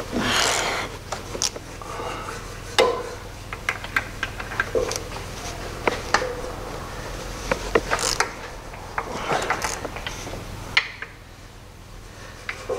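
Hand wrench and socket working the connecting-rod nuts of a 1.6-litre AKL engine from underneath: irregular sharp metallic clicks and knocks of the tool on the nuts, starting and stopping as the nuts are broken loose one by one.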